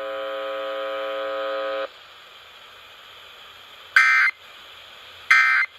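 A steady electronic tone of several pitches holds until about two seconds in, then two short, loud bursts of Emergency Alert System end-of-message data tones sound about a second and a half apart, signalling the close of the required monthly test.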